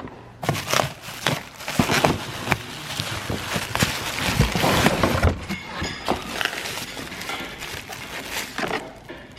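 Packaging crackling and rustling, with scattered sharp clicks and knocks, as a new water pump is handled and unpacked. It is busiest for the first five seconds or so, then lighter.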